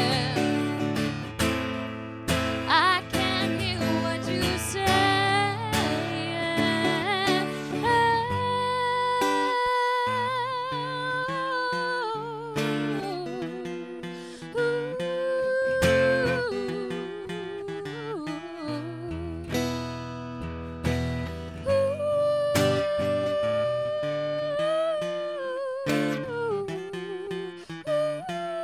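Acoustic guitar played under a woman's wordless vocal line, humming or vocalising long held notes with vibrato.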